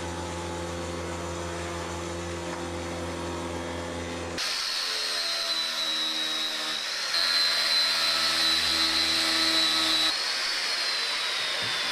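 Electric angle grinder fitted with a sanding disc, sanding a wooden frame: a high whine over gritty abrasion that dips briefly and picks back up, then slides steadily lower near the end as the disc slows. For the first four seconds or so there is only a steady low machine hum.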